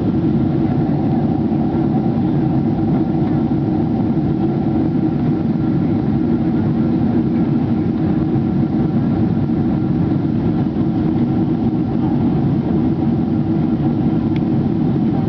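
Aircraft cabin noise in flight: a steady drone of engines and rushing air that stays even throughout.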